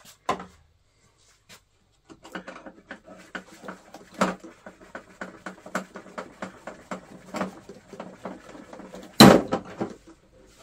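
Hands working on the parts of an old radio-controlled model boat: a run of small clicks and knocks, with one louder knock about nine seconds in.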